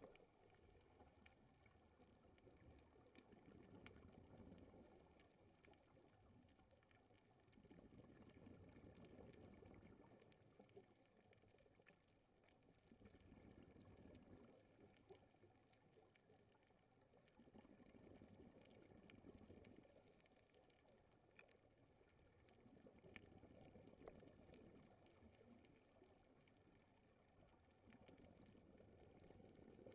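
Very faint, muffled underwater sound through a GoPro housing: a scuba diver's exhaled bubbles swelling and fading about every five seconds, with a few faint scattered clicks.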